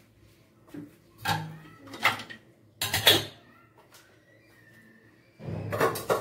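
Kitchen clatter: dishes and utensils knocking and scraping in a handful of short, sudden bursts, the loudest about three seconds in and another cluster near the end.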